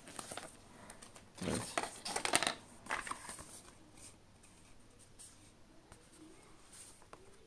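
Paper and cardboard rustling and scraping as a folded instruction leaflet and the earbud box packaging are handled. The loudest rustle comes about one and a half to two and a half seconds in, with a shorter one near three seconds and faint scraping after.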